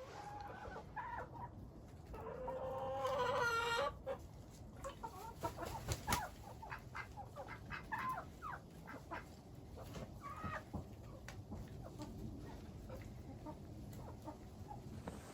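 Chickens clucking, with a rooster crowing once about two seconds in, a single long call lasting under two seconds, followed by scattered short clucks.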